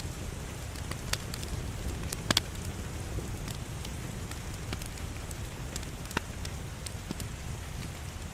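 Wood fire burning in a fireplace: a steady low rumble and hiss with scattered sharp crackles and pops, the loudest a quick double pop about two seconds in.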